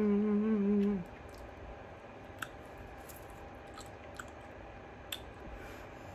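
A woman's closed-mouth "mmm" hum of enjoyment for about the first second, then quiet chewing of tangerine segments with a few small wet mouth clicks.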